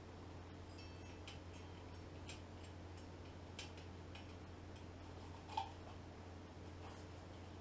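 Faint, scattered light metal clicks and taps as valve-train parts are handled and fitted on the cylinder head of a Chevrolet inline-six, with one sharper click about five and a half seconds in, over a steady low hum.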